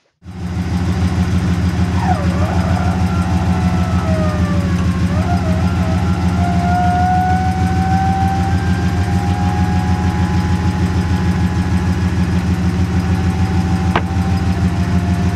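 1967 Oldsmobile 442's 400 cubic-inch V8 idling steadily through its dual exhaust, with an even, rapid pulse. A thin whine sounds over it, dipping in pitch and then holding steady.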